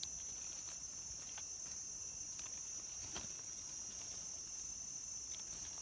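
Steady high-pitched chorus of forest insects. A few faint clicks and rustles come from a knife trimming mushroom stems among dry leaves.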